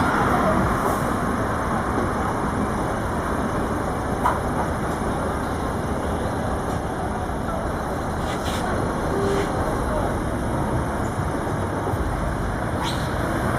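Heavy truck diesel engines running close by, a steady rumble, with people talking in the background.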